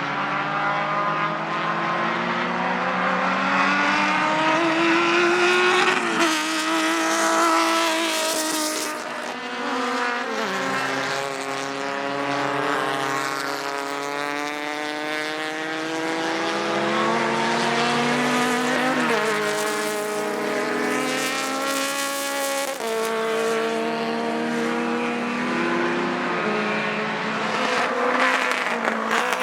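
Racing cars at full throttle, several engines overlapping, their notes climbing steadily in pitch and dropping sharply at each upshift, about four times.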